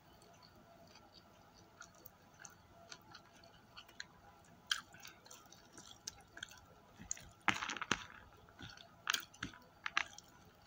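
Close-up chewing and mouth sounds of someone eating fried chicken, with scattered small clicks and taps from handling the food. About seven and a half seconds in comes a louder, crackly burst.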